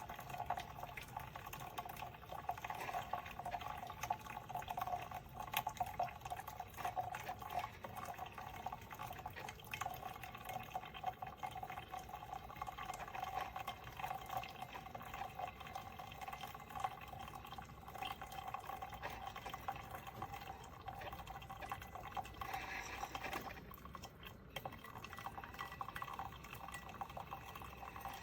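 Cuisinart drip coffee maker brewing: steady bubbling and trickling of hot water with many small crackles.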